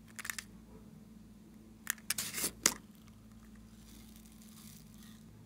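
Small plastic jar being handled and opened, giving short scratchy clicks and rustles, loudest in a cluster about two seconds in. Then a faint hiss as small foam beads pour out of the jar onto slime.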